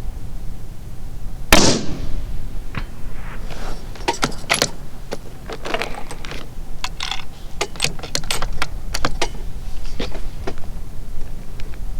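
A single shot from a Savage 110 bolt-action rifle in .223 about a second and a half in, followed by a long run of sharp metallic clicks and rattles as the bolt is worked.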